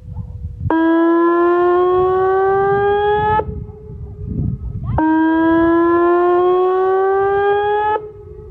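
Whelen WPS-2810 electronic outdoor warning siren sounding its test tone: a loud, slowly rising tone that lasts about three seconds and cuts off sharply, repeated after a short gap, twice.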